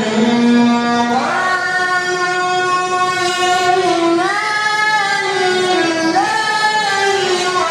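One voice chanting in long held notes, gliding up or down between them, with a rise in pitch about a second in and again around four and six seconds in.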